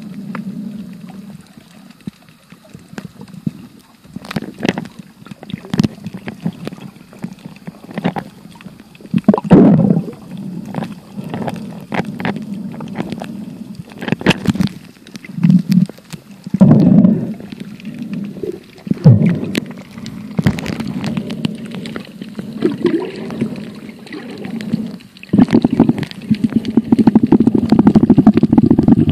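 Muffled underwater rumbling and sloshing picked up by a phone held below the surface while snorkelling, with irregular knocks and surges of water and handling noise; it grows denser and louder near the end.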